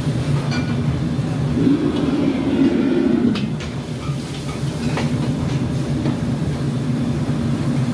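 Steady low rumble of commercial wok burners and the extraction hood, swelling briefly about two seconds in, with a few sharp metal clanks of utensils against woks.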